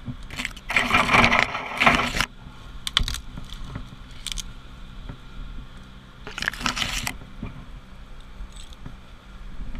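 Leaves and twigs brushing and scraping close against a tree climber's helmet, with metal climbing hardware clinking, in several short bursts as he moves through the crown; a low steady hum runs underneath.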